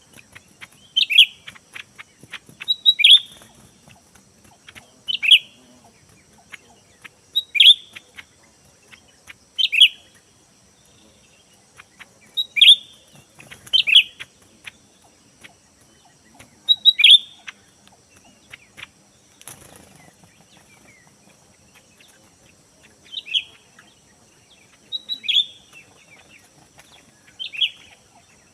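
A cucak ijo (green leafbird) giving short, sharp calls that drop in pitch, repeated about every one to two seconds. Under them runs a faint steady high whine.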